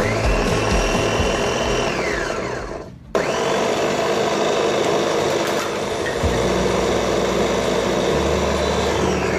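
Double-speed electric meat grinder's motor switched on, whining up to speed, running for about two seconds, then spinning down and stopping. It starts again at once at a higher pitch and runs steadily until it winds down near the end.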